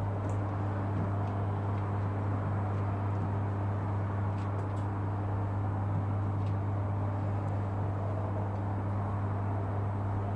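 Raw-milk vending machine humming steadily, a low electric motor hum that stays even throughout, as it runs to dispense milk into a bottle.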